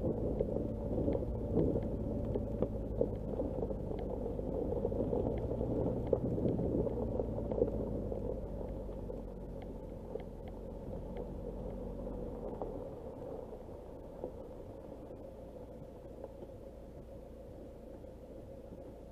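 Nissan Qashqai rolling slowly over a dirt and gravel track, its engine running low with small stones crackling under the tyres. About two-thirds of the way through, the engine drone drops away as the car slows to a stop.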